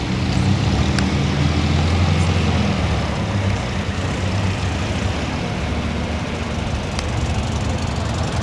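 Engine of a vintage open Singer sports tourer pulling away: a steady low engine note, loudest in the first few seconds and then weaker as the car moves off. Two short clicks, about a second in and near the end.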